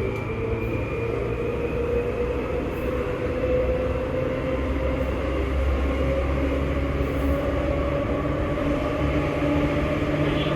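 Seibu 2000 series electric train running, its traction motors whining with a pitch that rises slowly and steadily as the train gains speed, over a steady rumble of wheels on rail.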